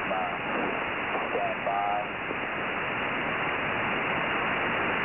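Shortwave radio static on the 8992 kHz HFGCS frequency, a steady loud hiss through a web SDR receiver, with a very weak voice from an Emergency Action Message broadcast faintly breaking through twice in the first two seconds.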